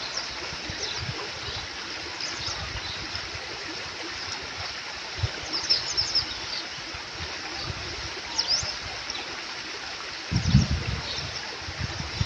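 Small stream flowing and trickling steadily. Short high chirps come through now and then, and there is a brief low rumble about ten seconds in.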